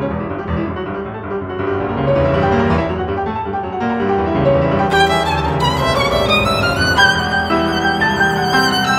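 Grand piano playing, joined about five seconds in by a violin that slides upward in pitch and then holds notes with vibrato over the piano.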